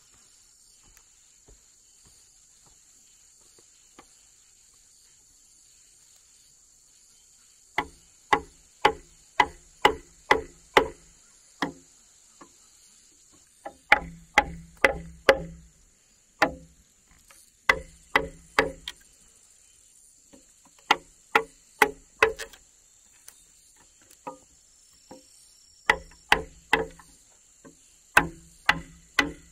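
Repeated blows of a tool on a wooden post, about two a second in runs of several, beginning about 8 seconds in, as a hole is cut through the post. A steady high insect drone runs underneath.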